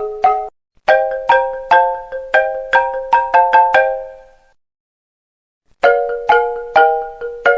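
iPhone ringtone melody of quick struck notes in chords, about two to three a second, with a short break about half a second in. It dies away after about four seconds, leaves a gap of silence of over a second, then starts again near six seconds.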